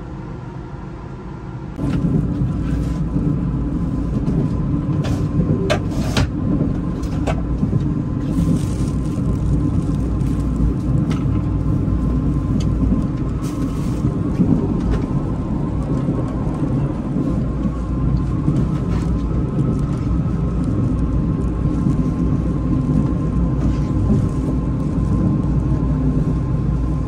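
Steady rumble of a moving vehicle heard from inside, with scattered clicks and rattles and a faint steady whine; it gets suddenly louder about two seconds in.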